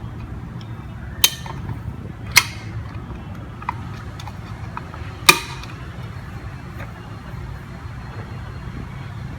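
Three sharp clicks and a few fainter ticks from the relay overload cover on a wine cooler's compressor being pressed into place and its spring-clip fastener snapped back on, over a steady low hum.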